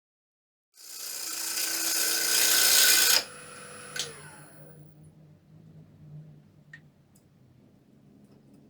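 A power tool cutting into wood: a loud, rough cutting sound that grows louder for about two seconds and stops abruptly, followed by a sharp click and a faint low motor hum.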